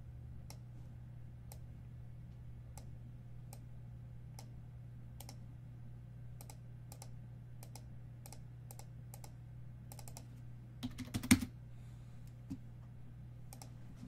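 Typing on a computer keyboard: scattered, irregular keystrokes, with a louder clatter about eleven seconds in. A steady low hum runs underneath.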